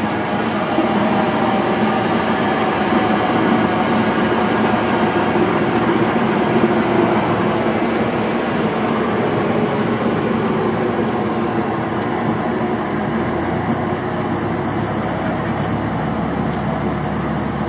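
Cessna 152's four-cylinder Lycoming engine and propeller running at low power, heard from inside the cockpit during the landing rollout. A steady drone that eases off slightly toward the end.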